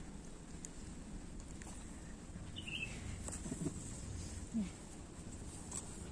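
Quiet outdoor background with a bird chirping once, about two and a half seconds in.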